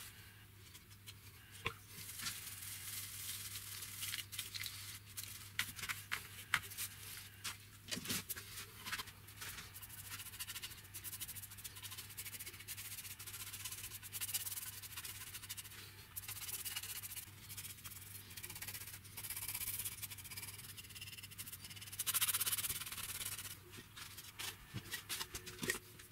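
Paintbrush stirring paint in a plastic-lined bowl, then brushing paint onto a wooden box: a run of scratchy rubbing strokes with small clicks and taps, over a steady low hum.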